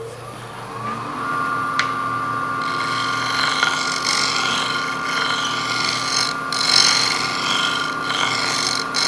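Wood lathe motor spinning up with a rising whine about a second in, then running with a steady whine. From under three seconds in, a turning tool scrapes the spinning wooden sphere with a hissing scrape that breaks off briefly twice as the tool lifts.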